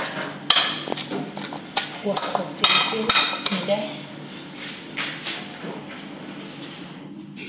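Metal hand whisk mashing boiled potatoes in a glass bowl, clinking against the glass in repeated strokes about two or three a second. The strokes turn softer and sparser after about four seconds.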